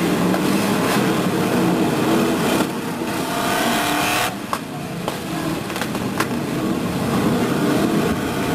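A pack of stock car engines revving hard as the cars race past together.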